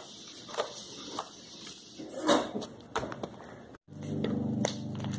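Sticky slime being squished and poked by hand on a table: irregular soft clicks and wet pops. About four seconds in the sound cuts out briefly and a steady low tone begins.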